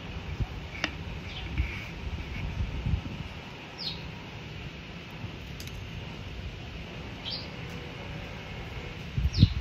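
Three short, high, falling bird chirps a few seconds apart, over low bumps and rumble from the handheld phone being moved. A sharp click about a second in, and a loud thump near the end.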